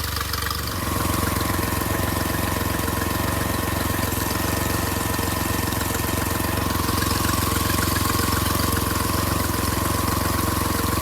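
Honda 40 four-stroke outboard motor running steadily after repairs, its note shifting slightly about a second in and then holding even.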